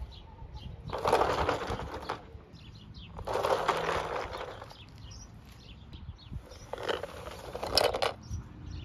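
Plastic toy school bus pushed along the ground by hand, its wheels rolling and rattling in three short runs of about a second each.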